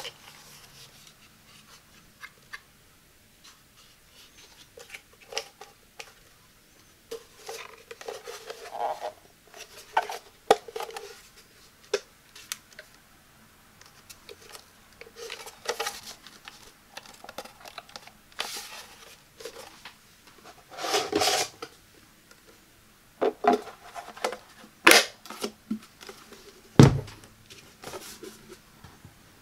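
Hard plastic housing of a Black+Decker LB700 leaf blower being handled: scattered taps, clicks and rubbing of plastic parts. There is a longer scrape about two-thirds of the way through and one dull thump near the end. The motor is not running.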